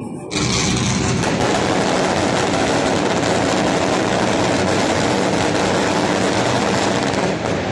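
A fireworks barrage going off so fast that the bangs merge into one continuous, loud noise. It starts suddenly about a third of a second in and dies away just before the end.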